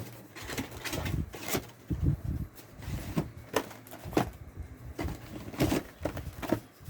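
Trading card trial deck box being opened and handled: irregular clicks, taps and light knocks of cardboard packaging and cards, with a few dull thumps.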